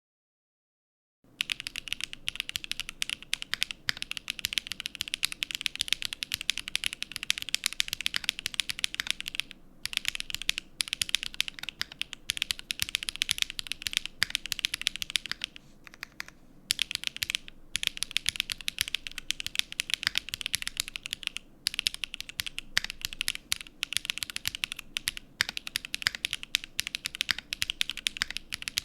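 Fast, steady typing on a KBDfans Pavlov mechanical keyboard with Zaku linear switches, an FR4 plate and a tadpole mount: a dense run of keystrokes that starts about a second in and stops briefly a few times.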